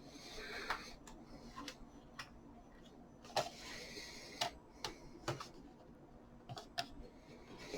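Scattered light clicks and taps with short bouts of soft rubbing, from plastic feet being lined up and pressed onto the underside of a laptop's bottom case.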